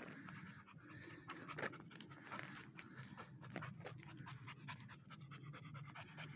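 Panting close to the microphone, with scattered footsteps and small clicks on rocky ground.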